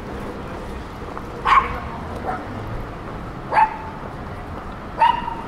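A dog barking: three loud single barks spaced a second and a half to two seconds apart, with a softer bark shortly after the first.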